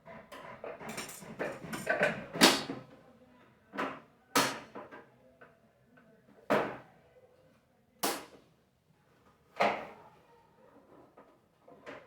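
Clattering of hard parts being handled while a vacuum cleaner is worked on, followed by a series of single sharp knocks or clacks spaced about one and a half to two seconds apart.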